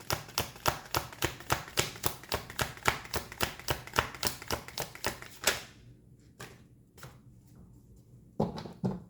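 Tarot cards being shuffled by hand: a fast, even patter of card slaps, about six a second, that stops after about five seconds, followed by a few separate taps as cards are handled.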